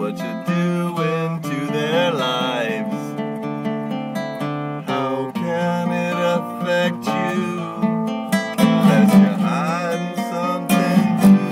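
Strummed acoustic guitar playing a song's accompaniment, with a few held notes that waver in pitch about two seconds in and again near nine seconds.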